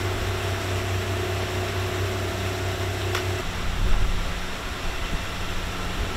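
Outdoor location sound with a steady low machine hum. About three and a half seconds in it changes suddenly to a lower, uneven rumble.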